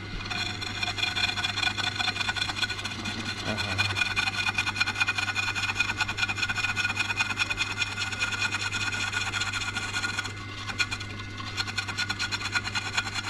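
Cutting tool scraping and chattering steadily against dar wood while hollowing out the inside of a wooden pung vessel, over a constant low hum. The scraping drops off for a moment about ten seconds in, then resumes.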